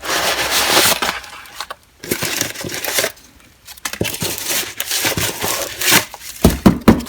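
Rummaging through a mail package: rustling of wrapping and fabric, then a run of knocks and clinks as items are handled in the box, with the loudest thumps near the end.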